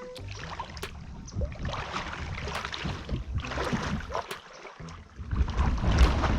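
Wind rumbling on the microphone, in gusts that swell and ease every second or two and grow louder near the end.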